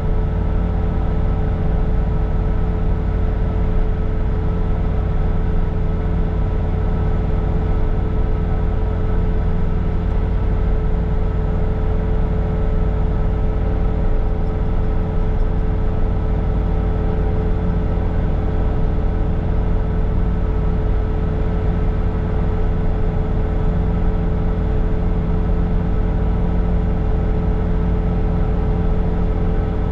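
Bobcat T66 compact track loader's diesel engine running steadily at high rpm, powering its snow blower attachment: a deep, even drone with a steady whine above it.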